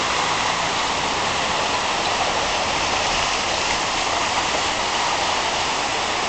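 Steady rushing of a fast-flowing stream spilling over rocks and across a paved track.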